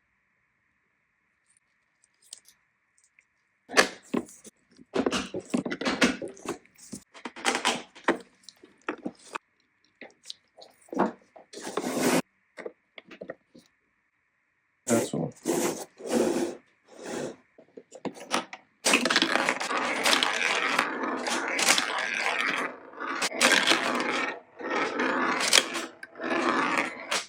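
Hard parts of a small toy pinball machine knocking and clacking irregularly, then a dense continuous clatter starting about two-thirds of the way in.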